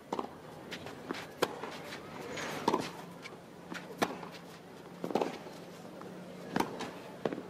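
Tennis ball struck back and forth in a baseline rally on a clay court: a sharp racket hit about every second and a half.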